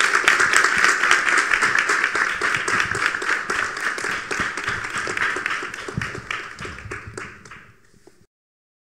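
Audience applauding, a dense patter of many hands clapping that dies away over the last few seconds.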